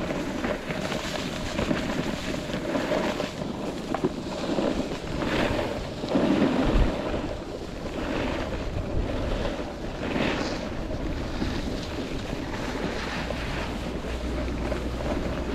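Skiing-slope descent: edges sliding and scraping through soft snow in a steady hiss that swells several times, with wind buffeting the microphone.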